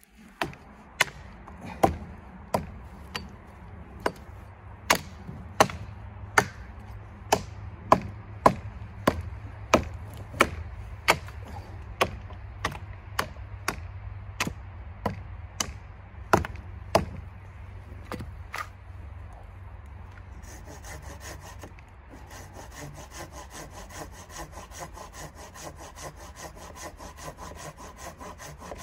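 Sharp knocks at an even pace, a little more than one a second, for most of the first two-thirds. After a short pause, a hand saw cuts through wood in quick, even strokes.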